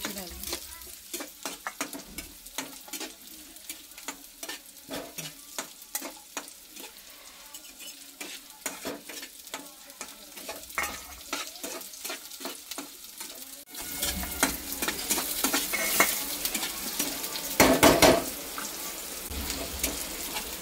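Steel spatula scraping and tapping in an iron kadhai while sliced onions fry in oil, with a sizzle under the strokes. It gets louder about two-thirds of the way through, with a burst of clattering strokes near the end.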